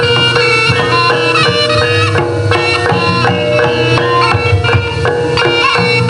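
Live East Javanese jaranan gamelan music. Kendang hand drums beat under a reed-trumpet (slompret) melody that steps quickly from note to note, over a steady held tone.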